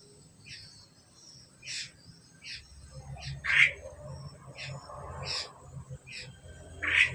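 Pied starlings (jalak suren) calling: a series of short, sharp notes about once a second, two of them much louder, one near the middle and one at the end. A low hum sets in partway through.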